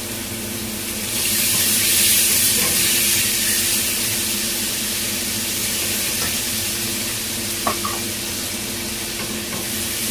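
Pork slices sizzling in hot oil in a nonstick frying pan, the sizzle growing louder about a second in as soy sauce goes in. A couple of light clicks of a nylon spatula against the pan come near the end.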